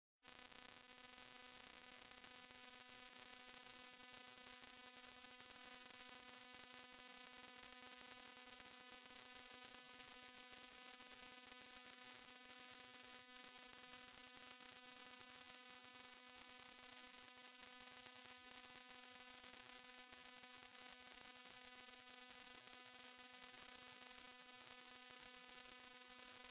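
Near silence: a faint, steady electrical hum with a hiss, the recording's noise floor.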